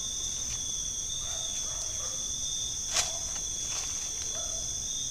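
Steady, high-pitched chorus of night insects such as crickets, with a single sharp click about three seconds in.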